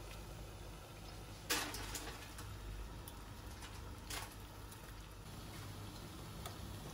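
Water boiling in saucepans on a hob: a steady bubbling hiss, broken by two sharp clicks about a second and a half in and again about four seconds in.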